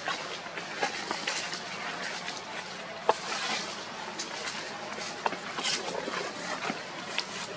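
Outdoor background noise: a steady hiss with scattered small clicks and rustles.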